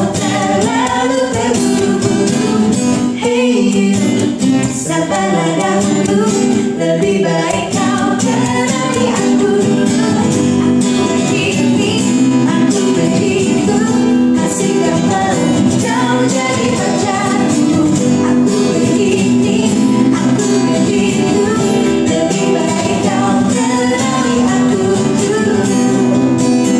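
Three voices, a boy and two women, singing a pop song live into microphones, trading lines and harmonising over an acoustic guitar accompaniment.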